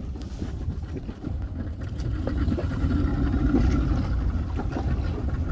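Wind rumbling on the microphone over a motorboat engine running, getting louder about two seconds in.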